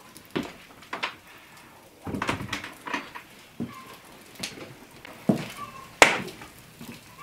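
Footsteps and knocks on a wooden plank floor, about a dozen uneven thuds with a few short creaks between them and one sharp, loud knock near the end.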